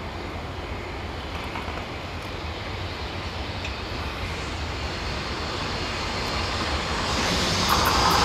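JR Freight EH200 electric locomotive hauling a container freight train on its approach, a steady rumble of the locomotive and wagons that grows louder as it nears and swells more sharply near the end.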